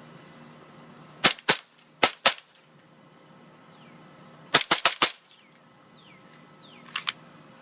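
A Colt 1911 CO2 blowback airsoft pistol firing, each shot a sharp crack with the slide cycling. Two quick pairs of shots come first, then a rapid run of four, and two fainter cracks near the end.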